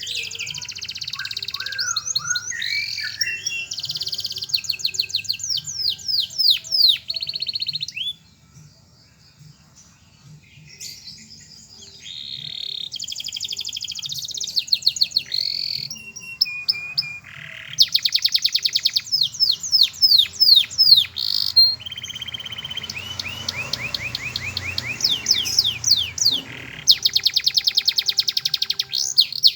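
Domestic canary singing a long song of rapid trills and falling sweeps in repeated phrases, breaking off for about three seconds some eight seconds in.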